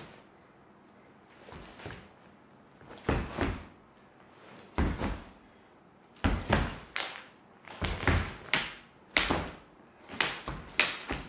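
Irregular dull thuds from a solo dancer's movements on stage, a few spaced out at first, then coming more often from about six seconds in.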